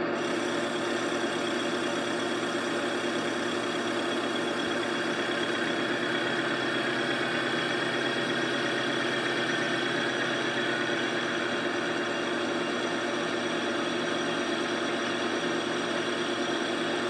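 Boye & Emmes 16-inch engine lathe running under a light cut on a wheel spacer: a steady motor and gear hum with the even hiss of the tool cutting.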